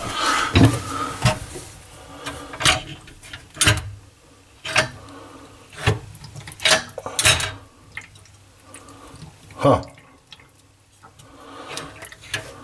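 A string of separate sharp knocks and clacks, roughly one a second, from handling the parts of a sink's pop-up drain assembly.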